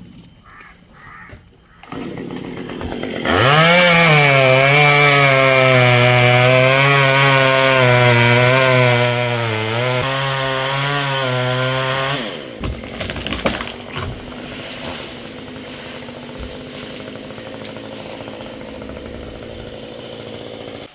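Two-stroke Stihl chainsaw revving up about three seconds in and running at high throttle in a cut, its pitch wavering under load. After about nine seconds it drops off to a quieter running sound.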